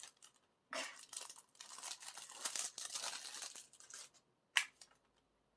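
Plastic shrink-wrap being torn open by its pull tab and peeled off an album, crinkling and tearing in uneven stretches, then a single sharp click about four and a half seconds in.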